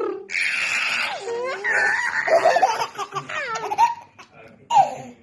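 A young child and a woman laughing and making playful vocal noises: a breathy hiss, then squeals and sliding high-pitched sounds, a short lull, and one more brief burst near the end.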